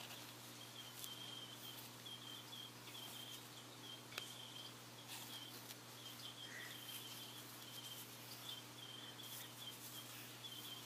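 Faint insect chirping: short, even chirps at one high pitch repeated in runs, over a low steady hum, with a few faint clicks.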